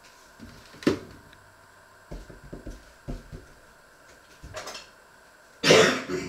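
Knocks and clatter of things being handled and set down on a wooden kitchen counter: one sharp knock about a second in, a run of short knocks a second later, and a louder scraping clatter near the end.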